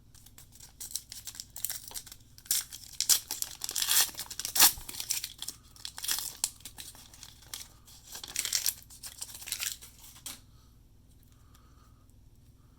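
A 1989 Upper Deck baseball card pack wrapper being torn open and crinkled by hand, a run of irregular crackles and rips that stops about ten seconds in.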